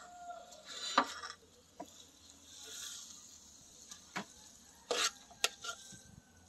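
A metal spoon clinking and scraping against an aluminium cooking pot and a plate as cooked cabbage is served out. There are several sharp clinks, the loudest about a second in.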